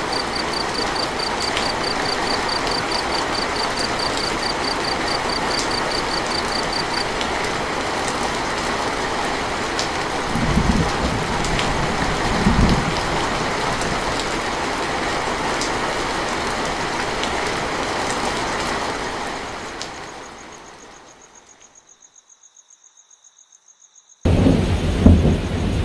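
Heavy rain falling steadily, with brief low rumbles of thunder twice around the middle. A fast, high pulsing chirp runs through the first third. The rain fades out about three-quarters of the way through, leaving near silence, then cuts back in suddenly with a loud rumble near the end.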